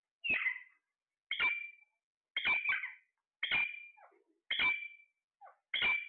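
Alexandrine parakeets calling loudly, about one call a second, each call ending in a short high squeal, with softer chirps between.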